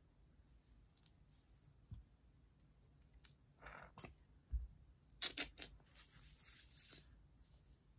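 Quiet room with faint handling sounds: scattered clicks, a soft thump about halfway through, then a brief crackly rustle, as mousse is worked into a curly wig.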